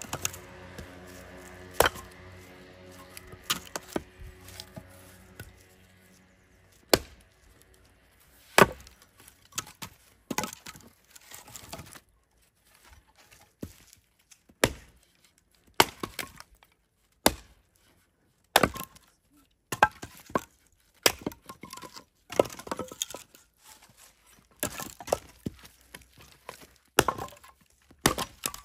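Firewood being chopped with an axe: sharp chopping blows land every second or two, with smaller knocks between them.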